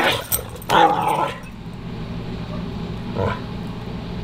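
Two dogs play-fighting, with two loud vocalisations in the first second and a half and a short one a little after three seconds. A faint steady low hum runs underneath.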